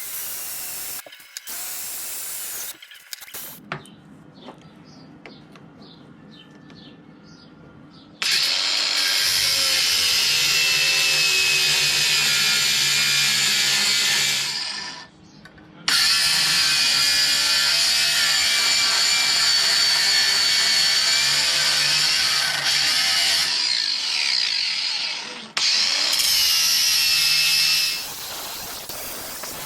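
A handheld power tool running in long steady runs, stopping briefly about halfway and again near the end, after a quieter stretch of light handling noises at the start.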